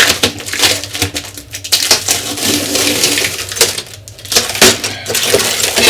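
Pieces of broken window glass being pried and pulled out of an old wooden door frame, clinking and cracking in a rapid, irregular clatter.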